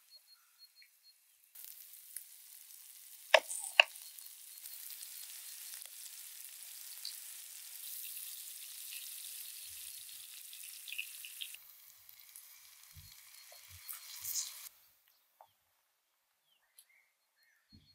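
Mushrooms, carrots and melting butter sizzling in a frying pan over a wood fire, a steady hiss. Two sharp clicks come about three seconds in. The sizzle cuts off near the end.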